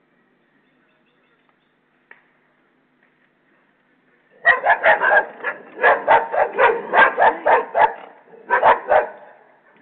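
A pack of dogs attacking a person, barking fiercely in a rapid volley of about twenty sharp barks. The barking starts about four seconds in, pauses briefly, and ends with a last burst of three.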